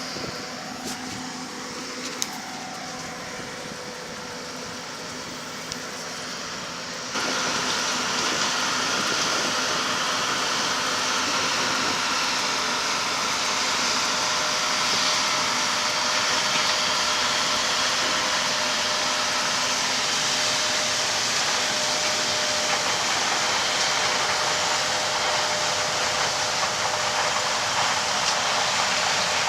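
John Deere combine harvester running while it harvests corn: a steady machine drone with a few held tones under a dense rushing noise, which turns suddenly much louder about seven seconds in.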